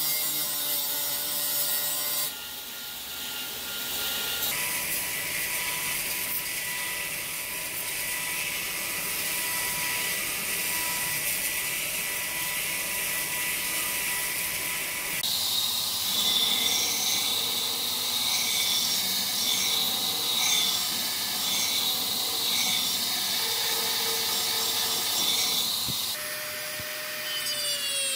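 Belt grinder running, its abrasive belt sanding a wooden axe handle: a steady motor whine over the hiss of sanding, changing abruptly a few times.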